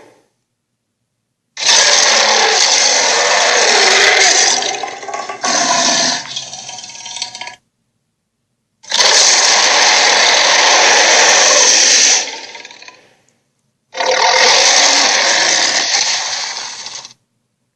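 Sharptooth dinosaur sound effect: three long roars, each several seconds long, separated by moments of dead silence. The first roar breaks up and trails off raggedly.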